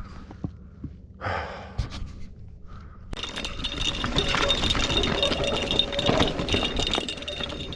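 A breath, then from about three seconds in a Specialized Stumpjumper EVO mountain bike rattling and clattering steadily over rough, rocky ground.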